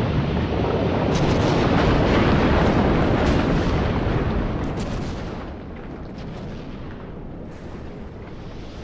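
Lava fountaining in an erupting volcanic crater: a dense, rushing noise broken by sharp pops and cracks of bursting magma. It drops noticeably in loudness about five and a half seconds in.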